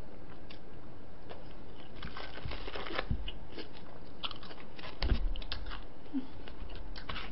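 Close-up crunchy chewing and biting of crispy fried food, with scattered small clicks; a brief louder clattering about five seconds in as a plastic takeout lid is handled.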